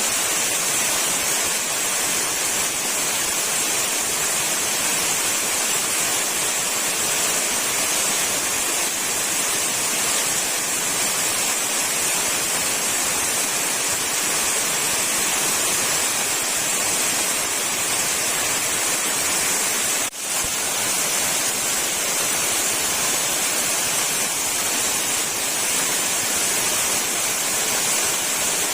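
Waterfall: a steady rush of falling water, with a brief dip in level about twenty seconds in.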